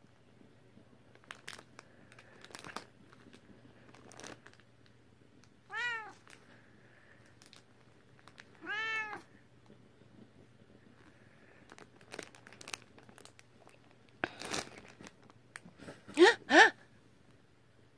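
British Shorthair cat meowing: two short meows that rise and fall in pitch, about six and nine seconds in, then two quicker, louder rising cries near the end. Light rustling and a brief noisy burst come from the cat being petted.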